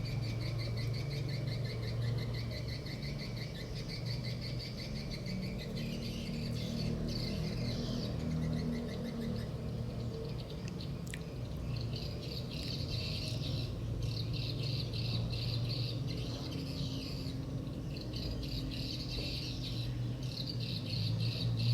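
Rapid high-pitched chirping trills that keep starting and stopping, over a steady low hum.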